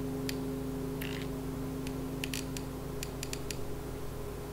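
Hot glue gun's trigger clicking, some clicks single and some in quick runs of two or three, as glue is squeezed out onto a paper cone. A brief soft rustle comes about a second in.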